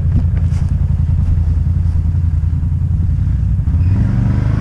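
ATV engine running as the quad crawls along a rough forest trail, a steady low drone whose engine note picks up near the end.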